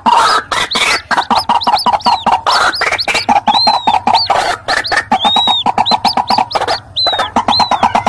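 White-breasted waterhen chicks and adults calling together: a loud, rapid, overlapping run of calls with high arched notes and a buzzy, pulsing chatter through the middle.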